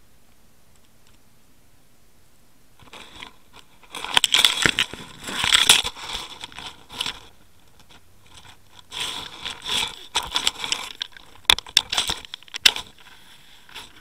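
Crunching and scraping against an underwater camera's housing as it shifts over riverbed gravel. It comes in two rough clusters a few seconds apart, with a few sharp clicks in the second.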